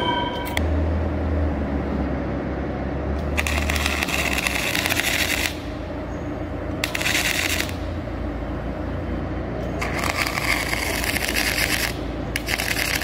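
Arc welding gun welding through the pre-drilled holes of ceramic wear tiles onto a steel plate: four bursts of crackling, the first and third about two seconds long, over a steady low hum.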